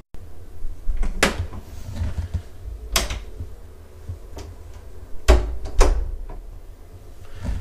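A wooden front door and its lock being handled: a few sharp clicks and knocks a second or two apart, over low rumble.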